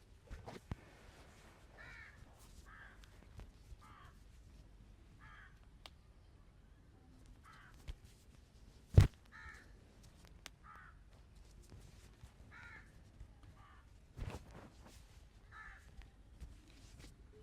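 A crow cawing repeatedly, short calls every second or two. A single sharp smack about nine seconds in is the loudest sound, with a softer knock near fourteen seconds.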